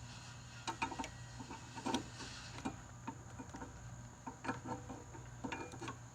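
Irregular clinks, taps and knocks of metal parts and tools being handled, in small clusters. Behind them, crickets chirr steadily and a low hum runs throughout.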